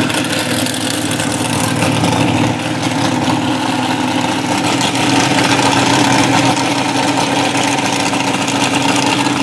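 A drag-race car's engine idling steadily.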